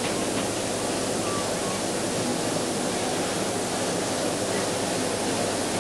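Steady murmur of a large indoor arena crowd, under a constant hiss.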